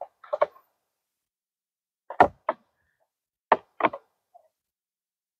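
Hard plastic compost-tumbler parts clacking and knocking as they are handled and fitted together: a handful of short, sharp clacks, mostly in pairs, with quiet gaps between.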